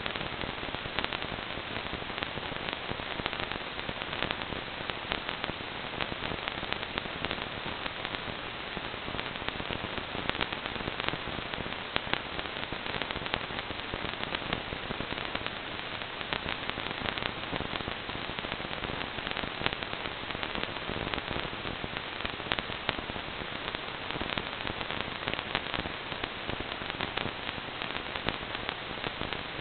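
Radio static from an analog FPV video receiver picking up no signal: a steady hiss thick with fast, irregular crackling clicks.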